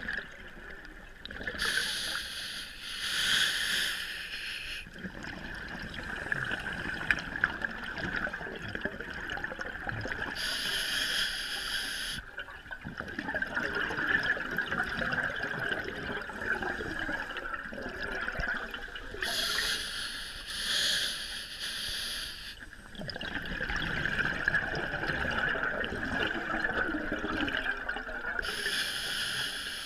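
Scuba diver breathing underwater through a regulator: four bursts of exhaled bubbles, each a couple of seconds long and about eight to nine seconds apart, with quieter bubbling and a steady hiss in between.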